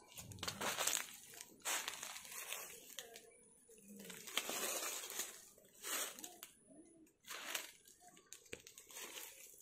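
Leaves rustling and crinkling in about six short, irregular bursts.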